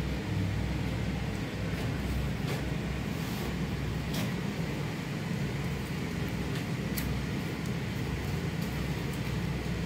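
Steady low mechanical rumble, with a few faint clicks as tape is handled on the cable.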